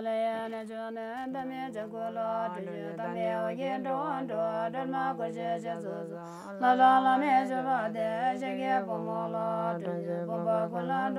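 A voice chanting a slow, melodic Buddhist prayer, holding long notes with small turns of pitch over a steady low tone. It grows louder about six and a half seconds in.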